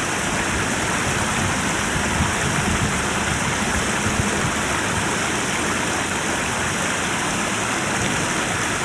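Steady rushing of water spilling over a low concrete weir in a river, an even noise with no breaks.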